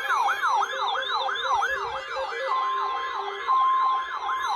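Electronic yelp siren, its pitch rising over and over at about three sweeps a second. About halfway through, a steady single-pitch alert tone joins it in broken stretches.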